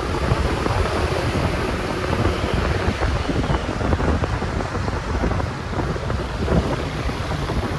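Wind buffeting the microphone of a moving motorcycle, a loud steady rush with a fluttering low rumble, mixed with road and traffic noise.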